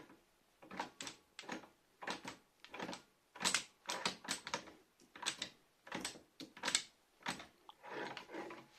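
Metal parts of a Holzmann UBM305 sheet-metal machine being worked by hand: about a dozen short scraping and clattering strokes at uneven intervals.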